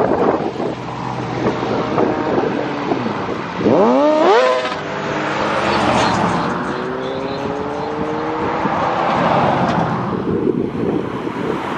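Trucks driving past, their engines accelerating. About three and a half seconds in, one engine revs up sharply, the loudest moment. A longer, slower climb in engine pitch follows as a truck pulls away.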